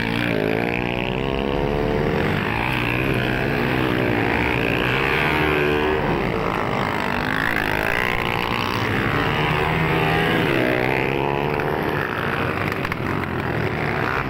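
Several motocross dirt bike engines running and revving, their pitch rising and falling over one another.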